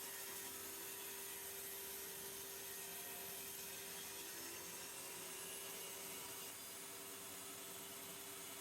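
Table saw running steadily, a constant whine over hiss, with a slight drop in level about six and a half seconds in.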